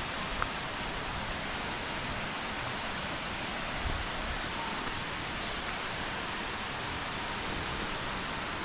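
Steady rushing hiss of running water, even and unbroken, with a couple of soft low thumps.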